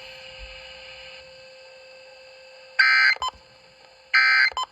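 Emergency Alert System SAME digital data bursts over weather radio: after about three seconds of faint steady hum, two short, loud, buzzy warbling bursts a little over a second apart. Coming right after the warning text, they are the end-of-message code that closes the alert.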